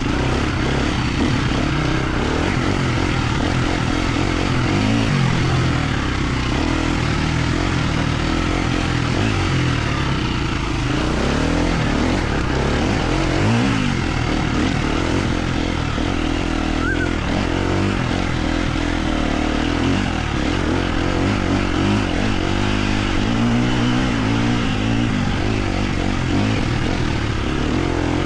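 Enduro dirt bike engine being ridden off-road, its note rising and falling repeatedly with the throttle.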